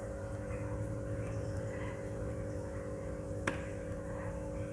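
Steady low electrical hum with a single keyboard keystroke click about three and a half seconds in, made while typing code.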